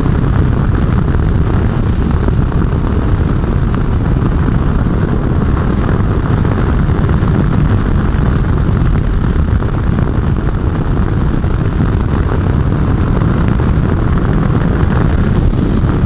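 Kawasaki Versys 650 parallel-twin motorcycle riding at a steady pace, its engine and road noise under a constant wind roar on the microphone.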